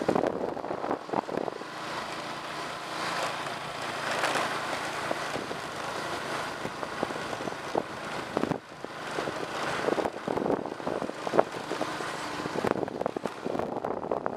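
A bike riding along a concrete lane: wind buffets the microphone, with frequent rattles and knocks from the bike over the path's joints and a faint low hum in the first half.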